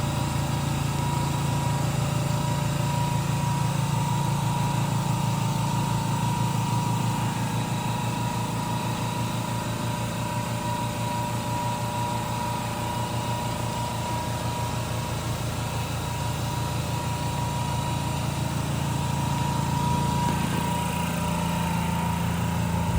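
Air compressors of a Peak Scientific AB-3G nitrogen generator running steadily in diagnostic mode: a low hum with a steady high whine over it.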